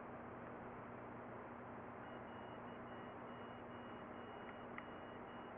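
Quiet room tone: a steady hiss with a faint low hum and a faint high tone that pulses on and off, and one tiny tick near the end.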